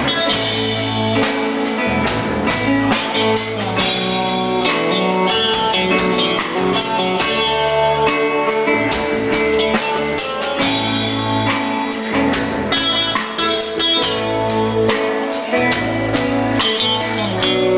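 Live band playing: guitar over a drum kit, with a steady beat.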